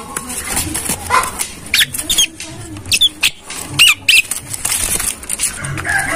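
Caged Javan myna (jalak kebo) giving short squeaky calls that glide up and down, several in quick succession through the middle, among scattered sharp clicks and knocks. The uploader presents these as the calls of a bird wanting to mate.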